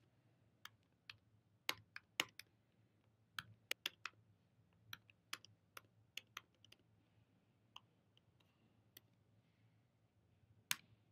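Faint typing on a computer keyboard: sparse, irregular key presses, with one louder keystroke near the end as the command is entered.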